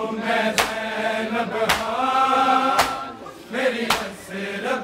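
A group of men chanting a Punjabi noha in unison, with a chest-beating (matam) slap landing about once a second in time with the chant.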